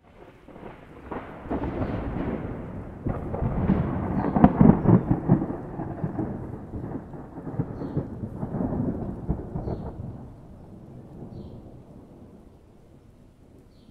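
A long rolling thunder rumble that builds to its loudest about four to five seconds in, swells again around eight to nine seconds, then dies away.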